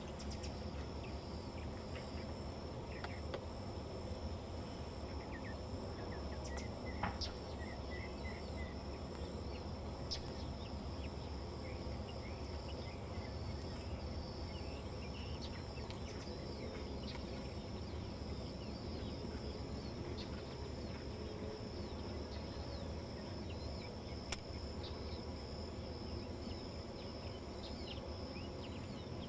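Steady high-pitched chorus of insects over a low rumble, with a short run of small bird chirps about six seconds in.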